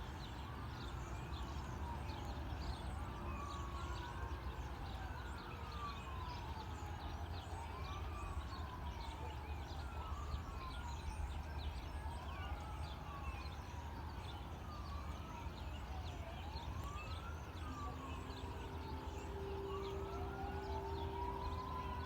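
Emergency-vehicle siren on a wail, its pitch sweeping up and down about once every two seconds, with overlapping sweeps as from more than one siren. Steady low rumble and small high chirps underneath, and a lower steady tone joins near the end.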